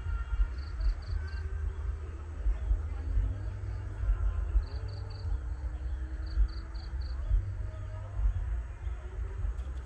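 Insects chirping in short runs of about four quick high pulses, repeated several times, over a steady low rumble.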